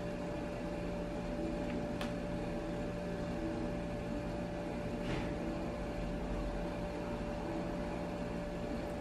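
Steady room hum with a constant tone, broken only by a couple of faint, brief clicks about two and five seconds in.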